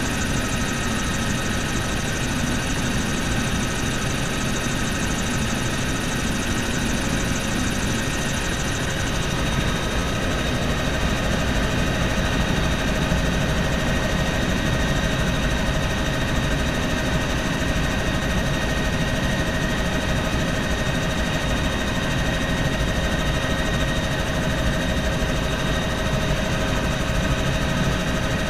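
Bell helicopter in flight, heard from inside the cabin: steady rotor and engine noise with a constant high whine over a low rumble.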